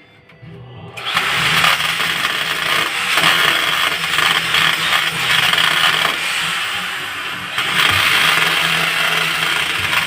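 Power drill boring a hole: it starts about a second in, runs steadily, eases off briefly and then bears down again near the end.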